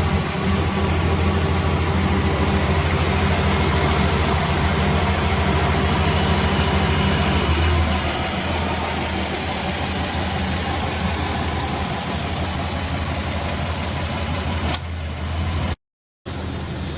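Subaru Legacy B4 RSK's 2.0-litre twin-turbo flat-four idling steadily through a BLITZ aftermarket muffler. The idle note shifts slightly about halfway through, and the sound ends with a click.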